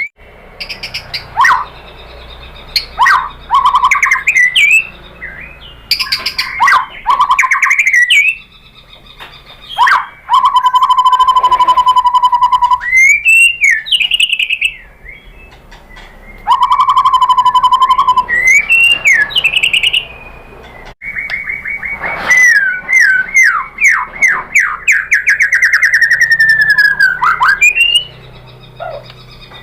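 White-rumped shama singing: a varied run of loud whistled phrases with sliding notes, two long steady whistles, and a fast trilled series of repeated notes.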